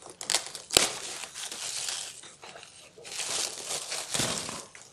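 Plastic bag crinkling and rustling in irregular crackles as it is handled and pulled open, with one sharper crackle about a second in.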